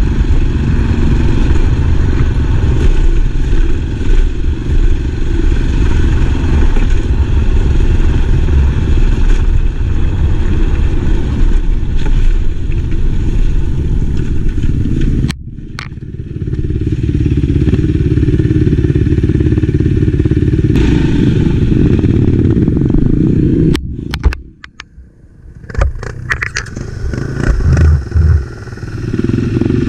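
Enduro motorcycle running while being ridden, its engine and riding noise heavy in the low range. The sound dips about halfway through and drops almost to nothing for a couple of seconds later on, then comes back with scattered knocks and rattles.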